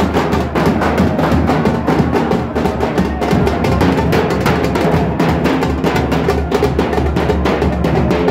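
Large drums beaten fast and without a break by a street band, a dense, loud run of strokes.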